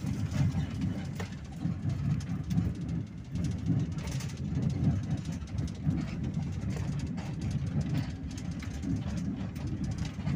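Moving bus heard from inside the cabin: a steady low rumble of engine and road noise, with a few faint rattles.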